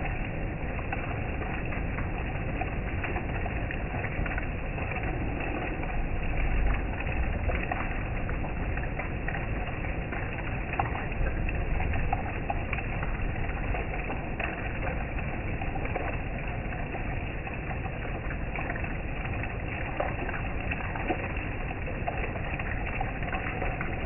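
Heavy rain pattering steadily, with many small drop ticks and a deep rumble underneath.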